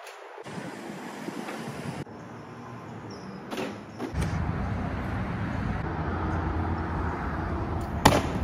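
Outdoor background noise with a low, steady rumble like distant traffic, broken by a few sharp knocks, the loudest near the end.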